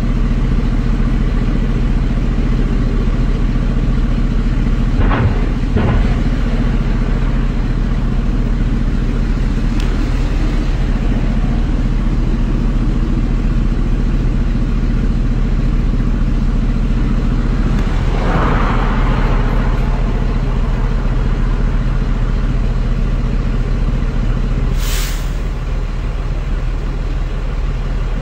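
Steady drone of a vehicle engine running, with two short knocks about five seconds in, a brief rush of noise later on and a short hiss near the end.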